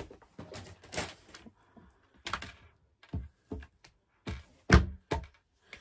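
A string of short, irregular taps and knocks, about nine of them, the loudest a little before the end.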